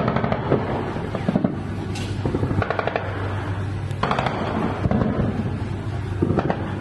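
Repeated bursts of rapid machine-gun fire from a warship's deck at night, firing tracers over the water at attacking sea drones, over a steady low hum.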